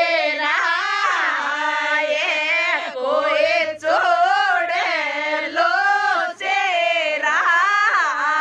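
A woman singing a Rajasthani wedding folk song (vivah geet) without accompaniment, in a high voice whose pitch bends and glides between notes in unbroken phrases.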